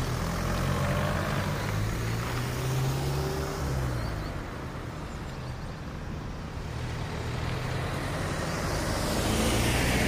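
Road traffic driving over a railway level crossing: cars and a box truck passing close by with engine hum and tyre noise, swelling again near the end as another car comes across.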